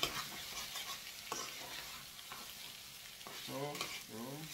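Metal spatula stirring and scraping fried rice around a stainless steel pan, a few sharp scrapes over a steady faint sizzle of the food frying.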